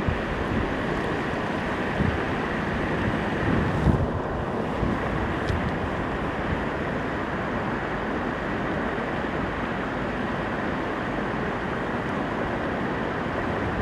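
Steady rushing noise of wind on the microphone, with no distinct events.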